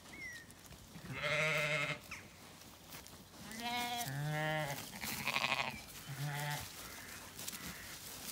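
Zwartbles sheep and lambs bleating: about five wavering bleats, some deep and some higher-pitched, a couple overlapping in the middle.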